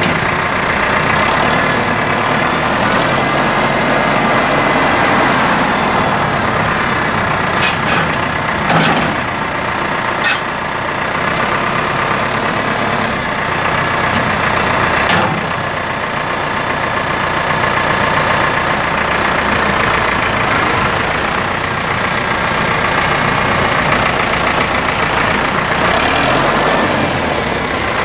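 2006 New Holland TL90A tractor's four-cylinder turbo diesel running steadily as the tractor drives slowly. A faint high whine rises and falls, and a few sharp knocks come about a third of the way in and again near the middle.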